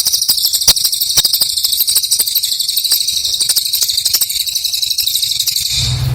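Cililin bird singing a high, rapid buzzing trill, held without a break for about six seconds and stopping near the end, with scattered clicks through it.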